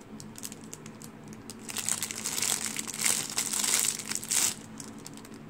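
Clear plastic packaging bag around a squishy toy crinkling and crackling as hands handle it and work it open. It is faint at first, loudest and densest from about two seconds in until about four and a half seconds, then thins out to scattered crackles.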